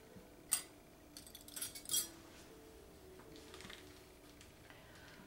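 Light clicks and clinks of detached metal clarinet keys being handled against a cork scraper while the key corks are scraped off. There is a sharp click about half a second in, a cluster of clinks between one and two seconds in, then a few fainter ticks.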